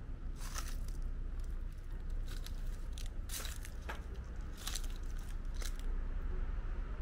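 Footsteps crunching on a gritty stone path at a slow walking pace, about one step a second, over a steady low rumble.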